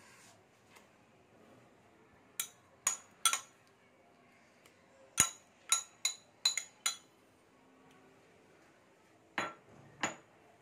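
Metal spoon clinking against stainless steel bowls in sharp, ringing taps while ginger paste is spooned onto raw mutton. There are a few taps, then a quick cluster of about six, then two more near the end.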